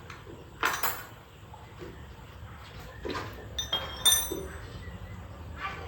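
Several separate hard clinks and knocks of metal objects: one about a second in, more around three to four seconds in with a brief high ringing, and another near the end.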